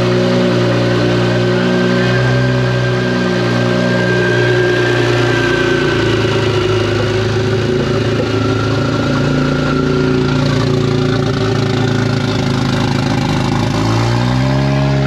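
BMW 135i's turbocharged inline-six, converted to a large single turbo, running steadily on its first start after the build. The revs rise briefly near the end.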